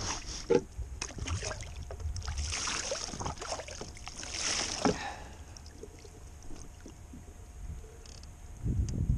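Hands splashing and swishing in the sea beside a kayak while rinsing a mackerel, with small clicks and knocks, strongest for a couple of seconds before dying away about halfway through. A low rumble comes in near the end.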